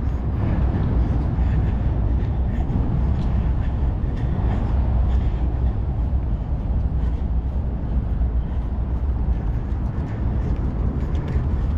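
Outdoor city background noise: a steady low rumble with a haze of hiss and faint scattered ticks, typical of passing traffic and wind at street level.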